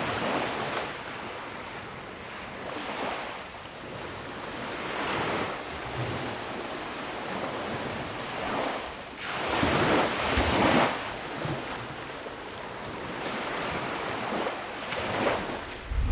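A rushing noise that swells and fades in slow surges every few seconds, with wind on the microphone. The biggest surge comes about two-thirds of the way through, and a sudden low rumble starts right at the end.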